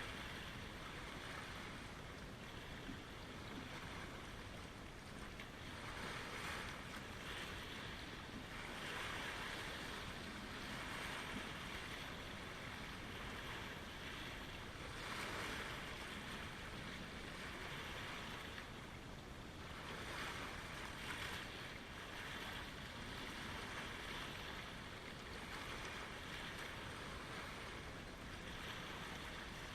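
Small lake waves washing in at the shoreline, swelling and fading every few seconds.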